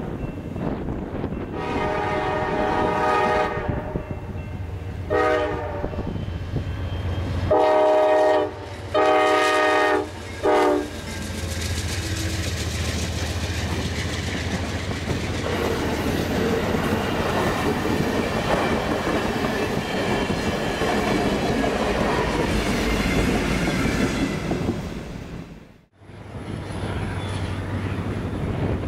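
Amtrak train led by a GE P42DC Genesis diesel locomotive sounding its multi-chime air horn in a run of long and short blasts over the first eleven seconds, then the locomotive and passenger cars passing close by. Near the end the sound cuts suddenly to the steady low rumble of another diesel locomotive.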